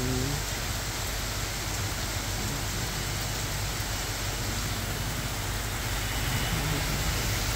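Heavy rain pouring steadily, with a low, steady engine hum underneath.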